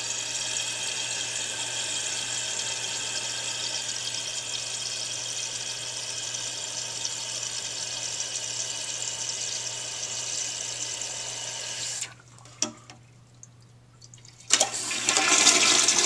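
Toilet tank fill valve hissing steadily as the tank refills to its newly raised water level, then shutting off suddenly about twelve seconds in. After a short quiet gap with a click, the Mansfield toilet is flushed with a sharp clunk, and water rushes out of the tank.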